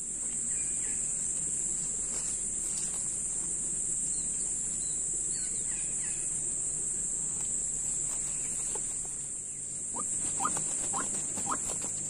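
Steady high-pitched insect chorus at the edge of a rice paddy, with a few short rustles about ten seconds in.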